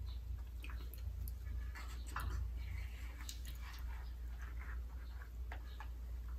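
Close-up eating sounds: a plastic fork clicking and scraping in a plastic takeout container, with chewing and mouth noises, as scattered small clicks over a steady low hum.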